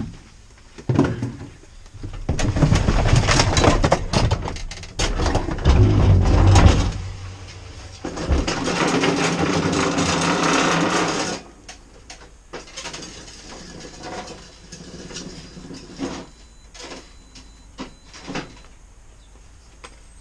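Clattering, scraping and knocking of garden equipment and fuel cans being moved and loaded, with a steadier rumbling stretch about eight to eleven seconds in, then scattered lighter knocks.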